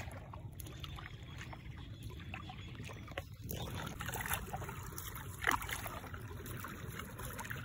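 A wooden paddle dipping and pulling through calm water beside a small boat's hull, with light splashing and trickling. A short falling squeak comes just after five seconds in.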